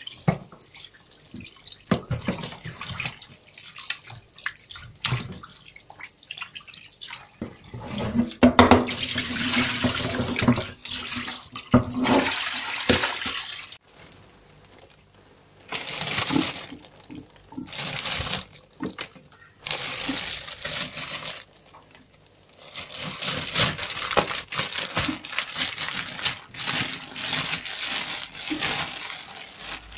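Tap water running and splashing into a metal basin as raw chicken pieces are rinsed by hand, coming in several long stretches with short pauses between. Near the end a plastic bag crinkles as the chicken is put into it.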